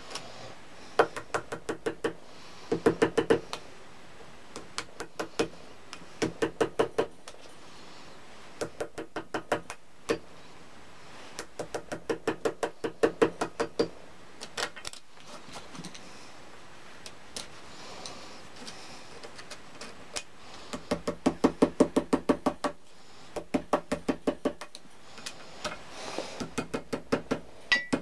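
Ball-pein hammer tapping a small punch held against the jaw-plate screws of a cast-iron vice, in quick runs of light metallic taps, several a second, with short pauses between runs. The aim is to shock rusted, seized screws loose.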